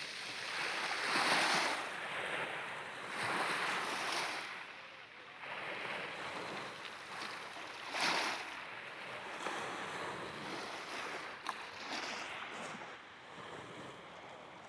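Sea waves breaking and washing on the shore, the surf swelling and falling away every two to three seconds.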